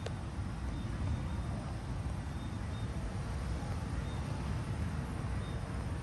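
Flames of a gas fire pit burning among rocks with a steady low rumble. There is a brief click right at the start.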